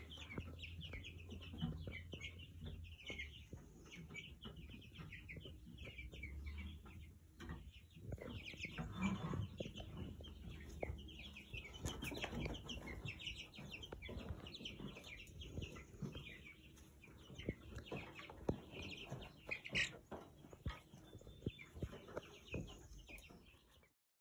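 A flock of young, half-grown chickens peeping and clucking, with many short high calls overlapping throughout. It cuts off abruptly just before the end.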